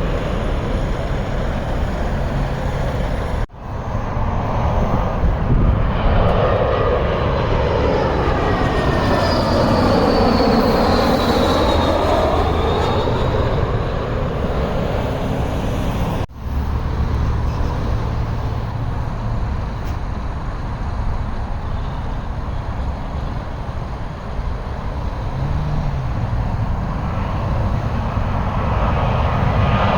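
Jet airliner passing low overhead on landing approach: engine rumble and rushing noise that sweeps down and back up in pitch as it goes by, with a high engine whine over it. The sound cuts out for an instant twice, and another plane's engines grow louder near the end.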